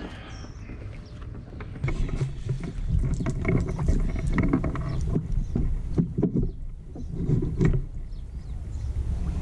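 Irregular knocks, clatters and thumps as a freshly netted flathead is brought aboard a plastic fishing kayak and clamped in a lip grip, the handling getting busy about two seconds in.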